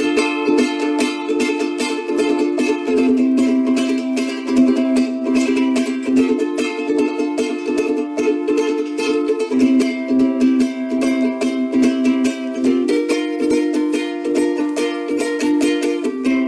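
Ukulele strummed in a quick, steady rhythm, changing chords every few seconds.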